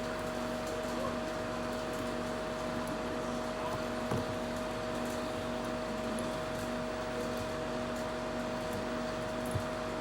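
Steady hum and whir of a small fan running, with light knocks about four seconds in and again near the end.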